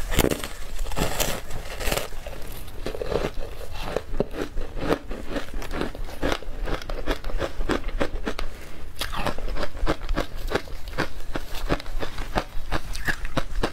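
Close-miked biting and chewing of powdery frozen ice coated in matcha powder: dense, continuous crunching made of many fine crackles.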